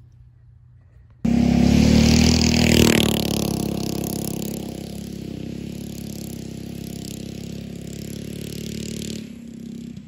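Go-kart's small engine running at high revs as it drives off, coming in suddenly about a second in, loudest a second or two later, then fading as the kart moves away before cutting off near the end.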